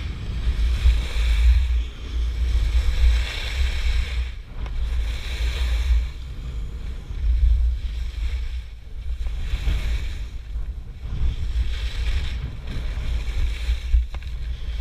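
Wind buffeting an action camera's microphone during a fast run down a groomed slope, a steady low rumble, with the hiss and scrape of edges carving packed snow swelling and fading every couple of seconds as each turn is made.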